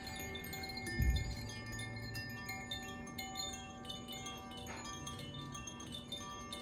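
Tuned wind chimes being played, with many clear tones ringing and overlapping as they sustain. There is a low thump about a second in.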